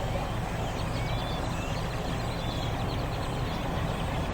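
A large flock of black birds calling, many short chirps and whistles overlapping, over a steady low engine hum.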